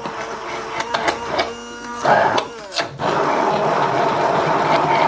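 Immersion blender running in a glass jar of thick oil-based mayonnaise, with clicks of the blade head knocking the jar. A little before three seconds in, the motor's pitch falls briefly, then it runs steadily again.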